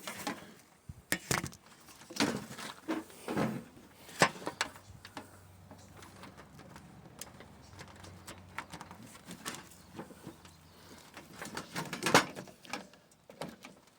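Scattered clicks, knocks and rattles of a power lead being unplugged, handled and swapped for another, with plastic plug and connector clicks.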